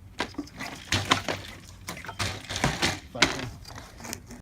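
Irregular clattering and knocking of hand tools and car body parts being handled during disassembly, a quick run of sharp knocks and rattles that dies away near the end.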